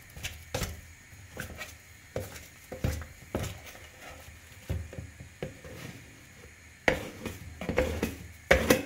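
Putty knife working filler on a wall: irregular sharp taps and light scrapes, one or two a second, louder and closer together near the end.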